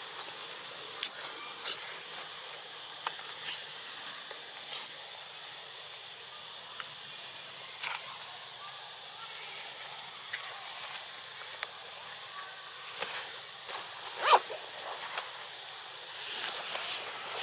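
Outdoor treetop ambience: a steady hiss with scattered short clicks and snaps. A brief louder call-like sound comes about 14 seconds in.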